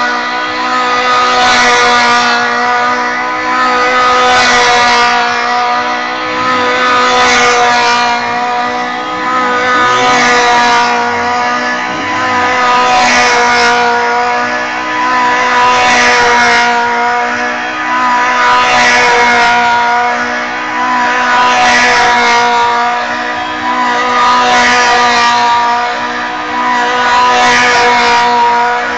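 Stunt car spinning continuous donut burnouts, the engine held at high revs against spinning, smoking tyres in one steady sustained note. It swells louder about every three seconds as the car comes round each circle.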